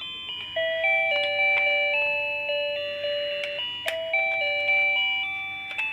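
A simple electronic chime melody: plain beeping notes stepping up and down in pitch, each note sounding and then fading, with a few light clicks.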